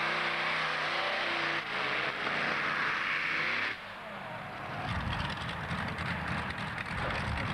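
Pulling tractor's engine running flat out under load as it drags the weight-transfer sled, cutting off abruptly a little under four seconds in. After that a low, rough, rapidly pulsing engine rumble takes over.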